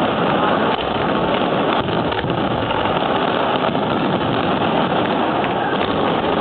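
Fireworks barrage heard as a loud, steady, dense crackle and rumble, with a few faint sharper reports standing out.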